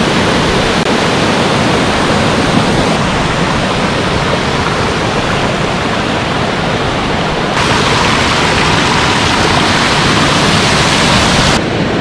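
Mountain waterfall cascading down rock ledges: a loud, steady rush of water, its tone shifting abruptly a few times.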